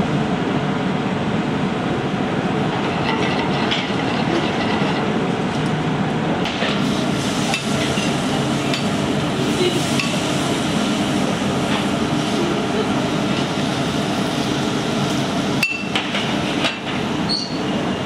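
Steady noise of a commercial kitchen's gas range and grill running, with food sizzling on the grill. A few sharp clinks of metal tongs come near the end.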